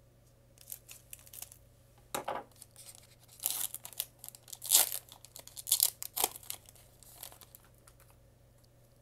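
A foil Pokémon booster pack being cut open with scissors, then crinkling and tearing as the wrapper is pulled apart by hand to get the cards out. The rustling comes in short bursts from about two seconds in and is loudest in the middle.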